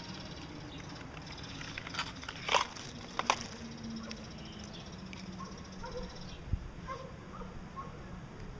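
Gouldian finch giving two short, sharp sneezes about two and a half and three seconds in, then a few soft, faint call notes, over a steady hum. Sneezing in Gouldian finches is the sign of a contagious respiratory illness.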